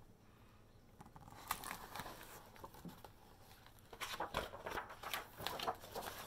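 Paper pages of a picture book rustling and flapping as they are handled and turned: soft crinkles and taps that start about a second and a half in and get busier in the second half.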